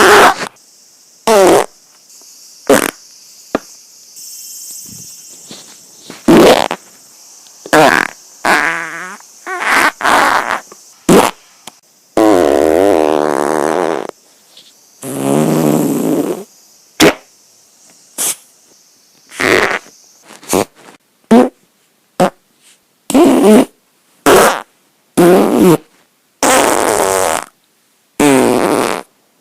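A string of about two dozen separate human farts with short gaps between them. Most are short sharp blasts; two in the middle are long and wavering in pitch.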